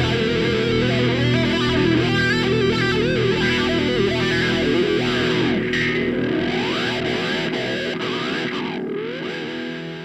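Outro music with distorted electric guitar, fading out near the end.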